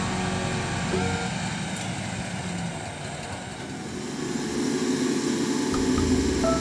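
Concrete mixer truck's diesel engine running as the drum turns and discharges concrete, growing louder about four and a half seconds in.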